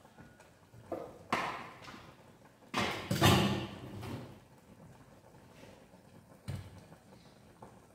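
Knocks and clatter of bottles being set down and picked up on a kitchen shelf: two knocks about a second in, a longer, louder clatter about three seconds in, and one more knock near the end.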